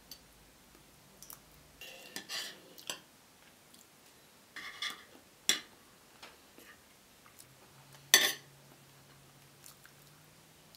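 Serrated steak knife and fork scraping and clinking against a plate while cutting and eating cooked cod: scattered short clicks and scrapes, with the sharpest clink about eight seconds in.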